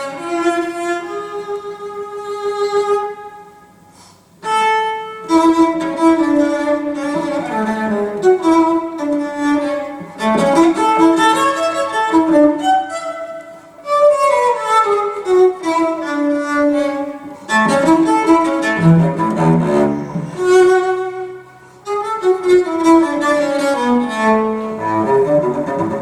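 Cello music, a recording played through Wilson Benesch Resolution loudspeakers in a demonstration room: bowed notes in flowing phrases. It dips briefly about four seconds in and again near twenty-one seconds.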